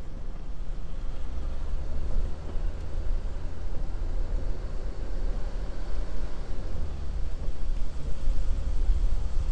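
Jeep Grand Cherokee CRD's diesel V6 and tyres on a dirt trail while driving slowly: a steady, uneven low rumble.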